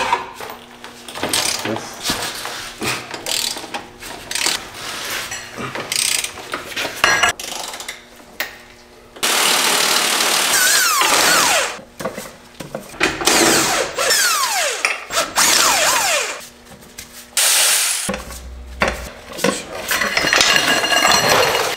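Power tools whirring in short bursts as bolts under the car are run out, mixed with clanks and rattles of hand tools and metal parts.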